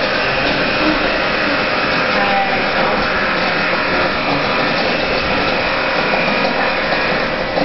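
Automatic popcorn vending machine running: a steady blower whir with a dense crackle over it.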